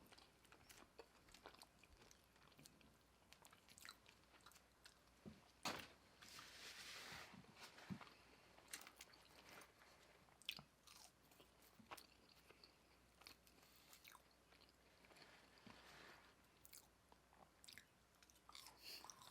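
Faint close-up eating sounds: chewing and biting with scattered small mouth clicks, a sharper tick just before six seconds in, and short soft rustling noises around six to seven seconds and again near sixteen seconds.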